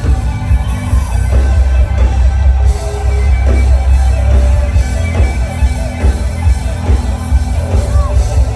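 Live band playing loud music, with a heavy bass line and a steady drum beat.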